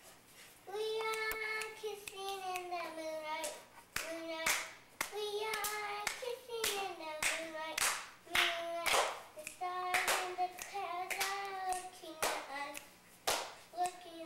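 Children singing a song together, with held notes that slide down in pitch, and hand claps throughout.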